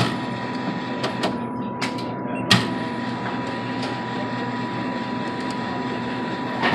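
Snack vending machine's delivery mechanism motor running with a steady whir, punctuated by several sharp clacks in the first few seconds, the loudest about two and a half seconds in, and another near the end. The machine is malfunctioning, shuttling left and right without dispensing.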